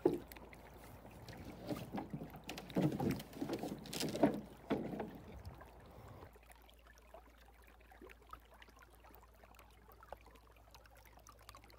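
Paddle splashing and knocking in shallow water as a light plywood canoe is poled and paddled off a stony river bottom, in a run of short, separate strokes. These stop about six seconds in, leaving only faint background.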